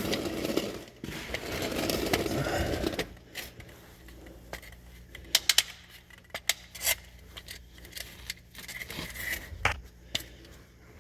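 Handling noise while working on the engine: a rustle for about three seconds, then a few sharp clicks and light taps of hard parts being picked up and set down.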